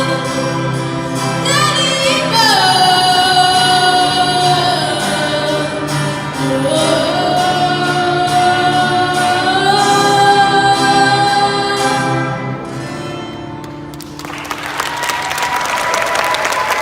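Singing with musical accompaniment, long held notes that glide up and down, as a song comes to its close; about fourteen seconds in the music stops and an audience breaks into applause.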